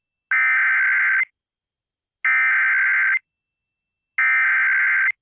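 Emergency Alert System SAME header: three identical bursts of harsh digital data tone, each about a second long with about a second of silence between them. They encode the start of an emergency alert, here a tsunami warning.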